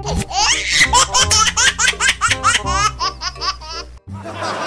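High-pitched laughter, a rapid run of short rising 'ha's, over background music. It cuts off about four seconds in, leaving music and a steady noisy background.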